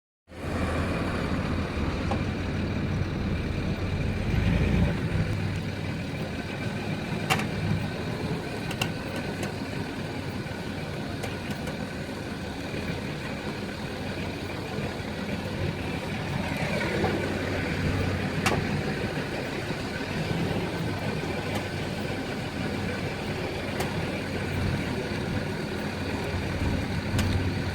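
Land Rover Discovery 3 running at a steady idle, checked for an unwanted noise from the rear wheel, with a few sharp clicks scattered through it.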